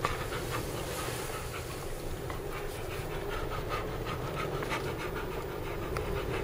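A dog panting in quick, even breaths inside a truck cab.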